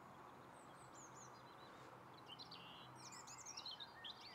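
Near silence with faint songbird chirps and quick whistles, busiest from about halfway through, over a soft background hiss.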